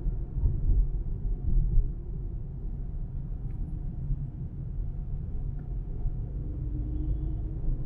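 Car being driven: a low, steady rumble of road and engine noise.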